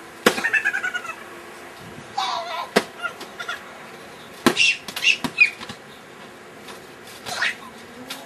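Boys shrieking and laughing in high-pitched voices, broken by several sharp smacks as they wrestle and swing a foam bat on a trampoline.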